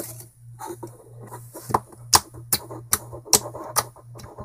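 Clear slime being squeezed and kneaded in the hand, with soft wet crackling and then about five sharp clicking pops in the second half as air pockets in the slime burst.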